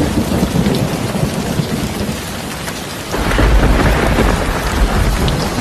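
Heavy rain pouring steadily onto a hard tiled courtyard floor. About three seconds in, a deep rumble swells up under the rain for a couple of seconds and is the loudest part.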